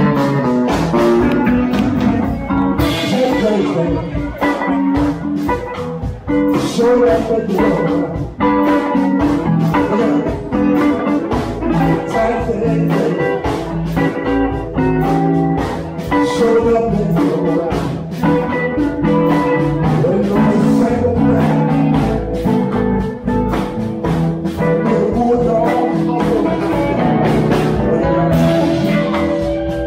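Blues band playing: guitar over a steady beat, with some singing.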